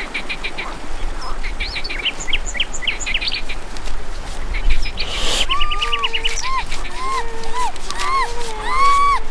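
Birds chirping and calling: quick high chirps through the first half, then, after a short rushing noise about halfway, an arched call that rises and falls, repeated over and over.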